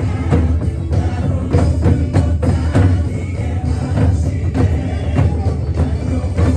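Upbeat CCM worship song playing, an instrumental stretch driven by many quick, sharp percussion strikes over a steady bass.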